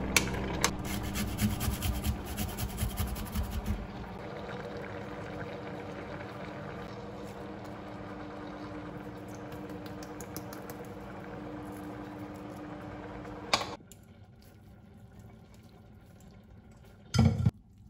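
A spoon clinking and scraping against a steel saucepan of simmering tomato sauce for the first few seconds, then a steady bubbling hiss from the simmering pot. The sound drops away abruptly about two-thirds through, and a single short, loud knock comes near the end.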